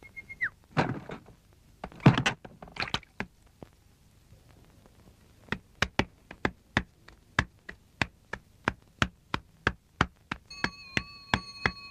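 Cartoon sound effects: a brief high tone, a few rustling scuffs, then a steady run of sharp taps about three a second. Near the end a steady high tone with overtones joins the taps.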